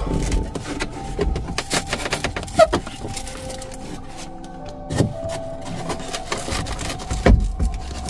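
The cut fibreboard backing of a car's inner door trim panel is bent and torn away by hand, giving irregular crackling and scraping with sharp snaps. The loudest snaps come about two and a half seconds in, at five seconds and just past seven seconds.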